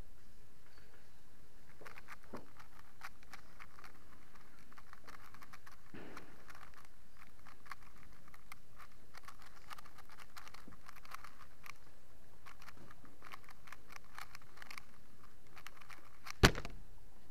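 A 3x3 speedcube being turned rapidly in a blindfolded solve, a dense run of small plastic clicks and rattles starting about two seconds in. One sharp, much louder knock comes near the end.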